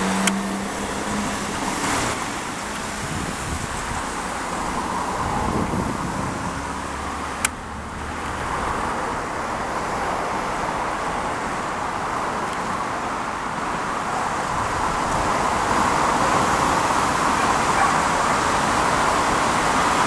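Jet engines of an Airbus A350-900 (Rolls-Royce Trent XWB) running, a steady rushing noise that grows louder over the last several seconds. Two sharp clicks, one right at the start and one about seven and a half seconds in.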